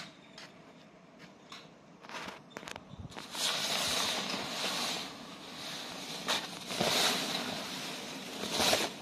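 A few light clicks, then loud rustling and dragging of a cloth cover being pulled off a moped, swelling and easing several times.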